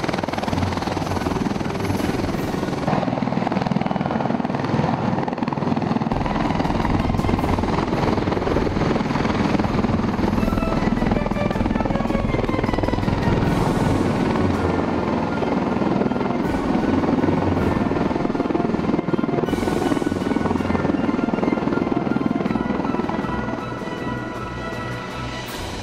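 CV-22 Osprey tilt-rotor in helicopter mode, its proprotors and turboshaft engines running steadily as it hovers and flies low, with music playing underneath.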